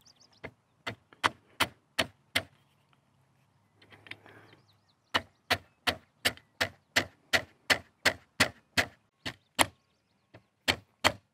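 A mallet striking a pin punch to drive roll pins out of a rifle's metal forend: sharp taps at about three a second, in runs broken by a pause of a couple of seconds near the middle. The roll pins are stubborn and hard to shift.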